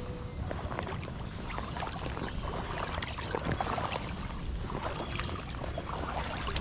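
Wind noise on the microphone, with scattered rustling and scuffing from footsteps and carried fishing gear.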